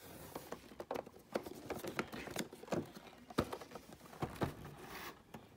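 Cardboard box being handled and turned over in the hands: rubbing and rustling of fingers on the cardboard with a run of light, irregular taps and knocks.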